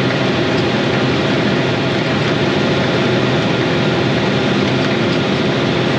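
Dump truck's diesel engine running steadily at road speed, with a constant rush of road noise.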